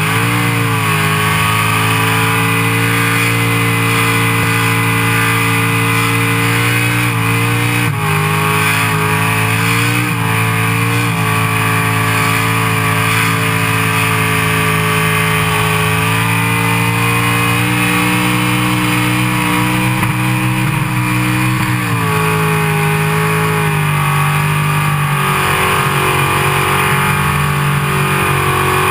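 Burnout car's engine held at high revs while the rear tyres spin in a burnout, loud and continuous. The revs dip briefly a few times and drop more markedly about three quarters of the way through before holding steady again.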